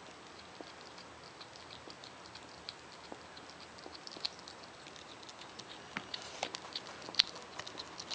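Hedgehogs eating: small, irregular crunching and clicking chews that come thicker toward the end, with one sharper click late on.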